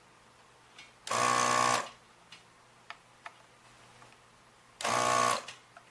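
Electric desoldering gun's vacuum pump buzzing twice, each burst under a second, as it sucks molten solder out of circuit-board joints; the first comes about a second in, the second near the end, with a few faint clicks between.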